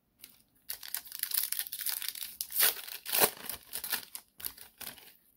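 Foil wrapper of a Panini Playoff football card pack being torn open and crinkled. A dense, crackly rustle starts about a second in, with the two loudest rips near the middle.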